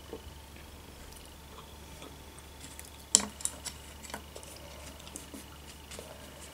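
A few small clicks and taps of wooden chopsticks being picked up and handled over a wooden board of sushi rolls, the sharpest about three seconds in, over a quiet room with a steady low hum.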